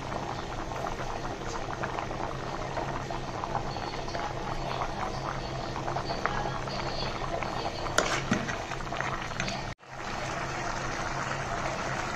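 Rice and chicken pulao boiling hard in water in a pot: steady dense bubbling and popping, with one sharper click about eight seconds in and a brief break just before ten seconds.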